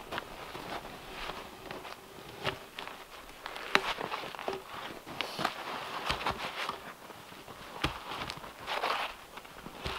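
Boots crunching in packed snow, with irregular wooden knocks and scrapes as a heavy cherry log is levered up onto a woodpile. The loudest knock comes just before four seconds in, as the log lands on the stack.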